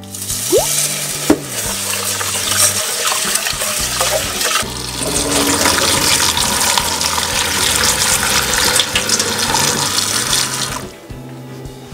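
Kitchen tap running into a stainless steel sink while raw rice is rinsed in a rice cooker's inner pot, the water splashing over the pot and hands. The water noise gets louder about five seconds in and stops about a second before the end.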